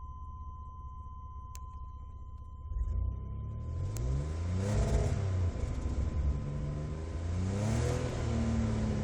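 1996 GMC Jimmy's 4.3-litre V6 idling, then revved twice, rising and falling in pitch with each rev, with a steady high-pitched tone underneath. The owner reports that this engine fouls its plugs and sputters badly under full throttle, and that it sets no engine codes.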